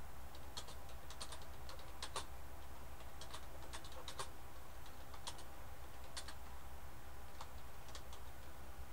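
Typing on a computer keyboard: irregular key clicks, a short sentence typed at an unhurried pace, over a steady low hum.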